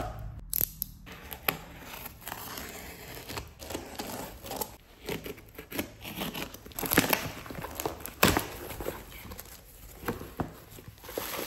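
A snap-off box cutter slitting the packing tape on a cardboard shipping box, then the cardboard flaps being pulled open, with irregular tearing, scraping and crinkling of tape and cardboard. Two sharp, louder scrapes come a little past the middle.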